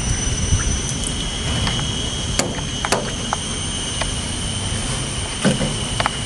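Steady outdoor background noise: a constant high-pitched whine over a low rumble, with a few short sharp ticks, the clearest about two and a half and three seconds in.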